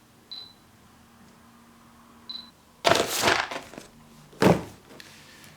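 Fujifilm X-T2 camera giving two short high beeps, typical of its autofocus confirmation, followed by louder clicks and a knock as the camera is handled.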